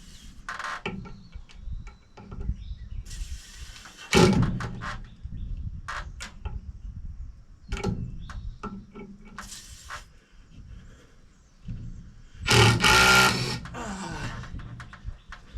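Irregular knocks, clunks and scraping from hands-on construction work with heavy timber and tools. Several short rasping bursts run through it, the loudest near the end, carrying a pitch that falls away after it.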